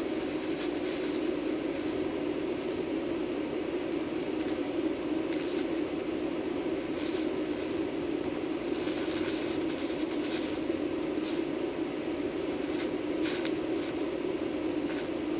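TIG welding arc on steel at about 100 amps, a steady hum and hiss with scattered sharp crackles as it throws sparks. The welder puts the sparks down to his torch angle being too low.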